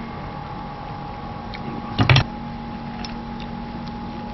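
Steady mechanical hum holding a few fixed tones, with a brief, sharp double knock about two seconds in.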